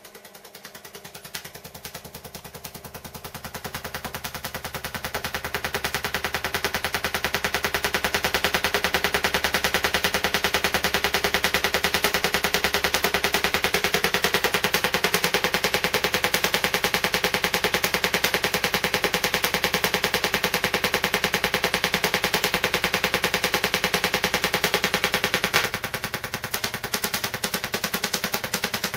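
GU-81 vacuum-tube Tesla coil on a staccato driver, its spark discharge firing as a rapid, even stream of sharp cracks. It grows louder over the first several seconds, holds steady, and drops somewhat a few seconds before the end.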